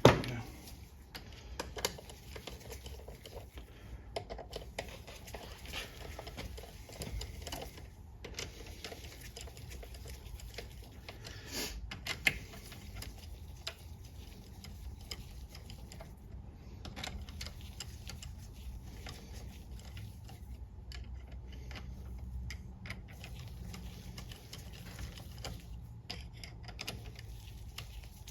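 Hand ratchet clicking in quick runs as the oil pan bolts on a ZF 8HP70 transmission are wound in, with a sharper click or knock of tools at the start and again about twelve seconds in.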